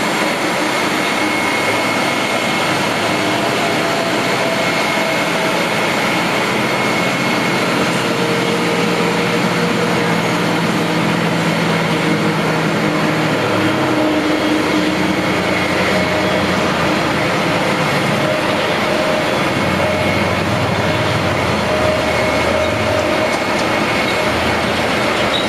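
Ramp noise during an Airbus A320 pushback: the airliner's steady jet whine and rush, with the pushback tug's engine rumbling underneath and shifting in pitch a few times.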